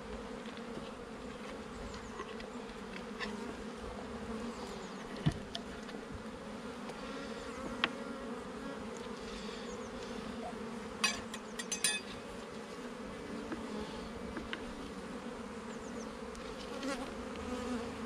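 Honeybee colony humming steadily from an open hive. Over it come a few short sharp clicks and scrapes, a quick cluster about two-thirds through, as a metal hive tool works across the wooden frame top bars to clear brace comb.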